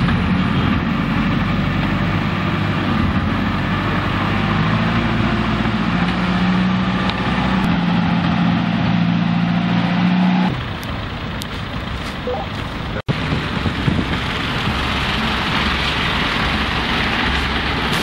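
Diesel engine of a snow-clearing backhoe loader running steadily under load, with a held low hum. About ten and a half seconds in, it gives way to quieter vehicle sound, and from about thirteen seconds in there is an even rushing noise of a vehicle moving on the snowy road.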